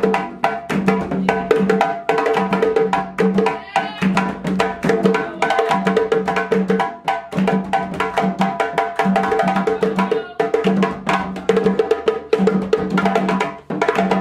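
Djembe hand drums played together in a fast, busy rhythm, with rapid strikes and ringing drum tones throughout.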